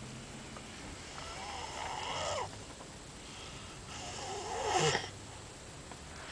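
A sleeping man snoring: two snores a couple of seconds apart, the second louder.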